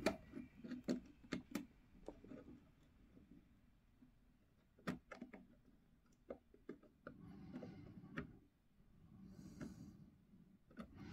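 Faint scattered clicks and soft rustling from hands handling a steel ruler, pins and an N-scale model railway turnout on cork underlay, with short rustles near the middle and end.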